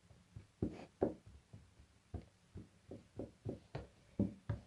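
About a dozen soft, irregularly spaced taps and thumps, a few of them sharper than the rest.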